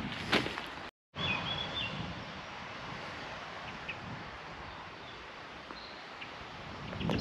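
Steady outdoor background noise with a short stepped bird chirp about a second and a half in. A couple of light knocks near the start, a footstep on the dirt path, and an abrupt break about a second in.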